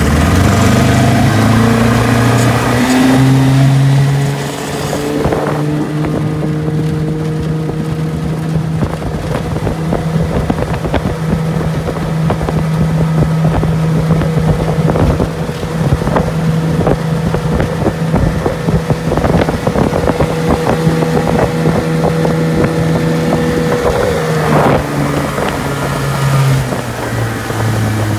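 1958 Elgin 12 hp two-stroke outboard motor driving a small aluminum boat at speed: the engine climbs in pitch over the first few seconds, holds a steady high running note, then drops back near the end. Wind buffets the microphone throughout.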